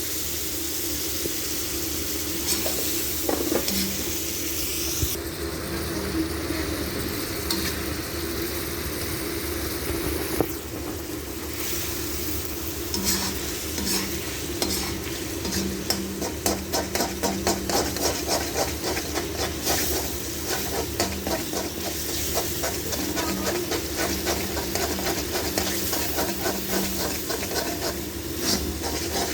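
Chicken karahi sizzling in a karahi pan while a spatula stirs and scrapes it, the scraping coming thick and fast about halfway through.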